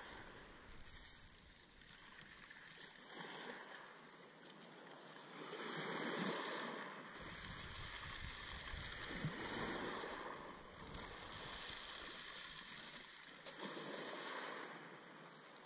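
Small sea waves washing and slapping against the wooden posts of a groyne, swelling and easing in surges, with wind buffeting the microphone for several seconds in the middle.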